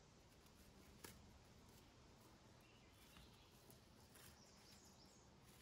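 Near silence: faint outdoor background, with a single soft click about a second in.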